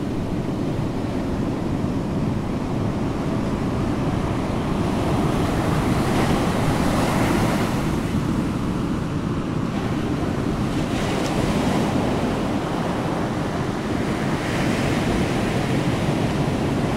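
Ocean waves washing: a steady rushing surf that swells and eases, rising around the middle and again near the end.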